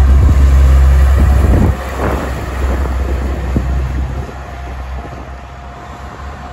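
Diesel semi truck pulling a trailer away, its engine running with a loud, deep rumble that drops off abruptly just under two seconds in, followed by a short hiss, then fading as the truck moves off.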